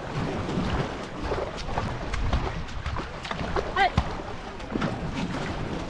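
Paddles of a racing canoe pulling hard through the water in a sprint, with splashing and water rushing along the hull, and wind buffeting the microphone. A short vocal call cuts in about four seconds in.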